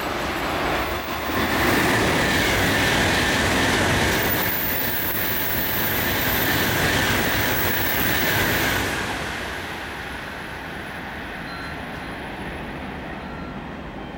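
700 series Shinkansen passing through a station at speed without stopping. A loud rush of running noise builds about a second and a half in, holds for about seven seconds as the cars stream past, then drops away to a fading rumble as the train recedes.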